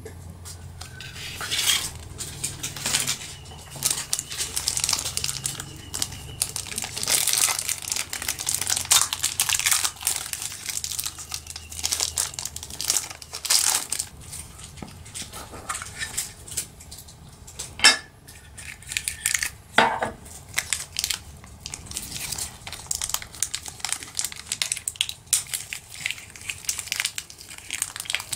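Close-up handling of a small toy: paper and thin plastic wrapping crinkling, with light clicks and taps from a small metal tin being turned over and opened. There are a few sharper clicks in the middle.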